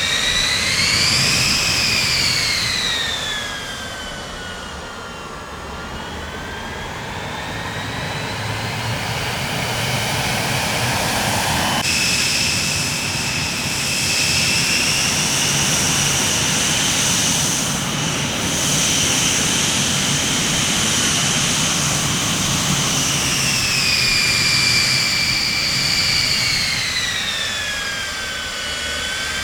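Jet airplane engines running with a low rumble and a high turbine whine that rises and falls slowly in pitch; about twelve seconds in the sound changes abruptly to a steadier, higher whine, which later falls and rises again near the end.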